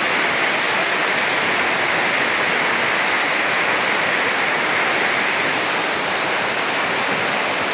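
Steady rushing of a fast-flowing stream, an even hiss of water with no breaks.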